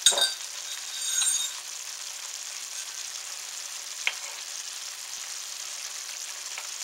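Onion and mushroom sauce simmering with a steady bubbling sizzle in an electric skillet while a metal spoon stirs it. A louder clink and clatter comes in the first second and a half, and the spoon gives a couple of light clicks against the pan later.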